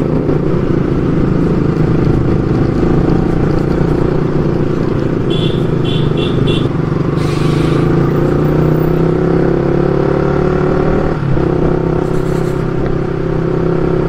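Motorcycle engine running steadily under way, its pitch shifting a little and dipping briefly about eleven seconds in. Four short high beeps sound a little after five seconds in.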